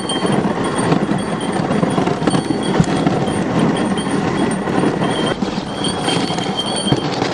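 Dog sled running over a hard, icy packed-snow trail: a steady scraping rumble from the runners. A faint thin high tone comes and goes over it, plainer in the second half.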